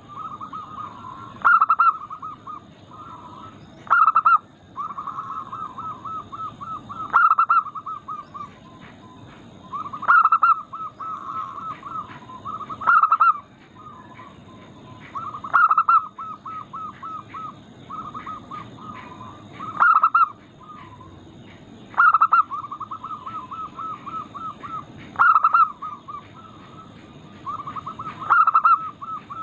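Zebra doves (perkutut) cooing: a loud cooing phrase comes every two to three seconds, with quick runs of short, even coos in between.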